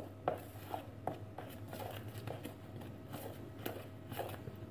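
Cookie dough of butter, sugar, flour and egg being mixed by hand in a plastic bowl: irregular soft strokes and scrapes against the bowl, about two a second, over a low steady hum.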